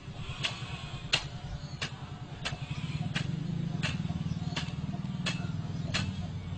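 A low steady engine-like rumble, a little louder from about halfway in, with a sharp tick repeating evenly about one and a half times a second.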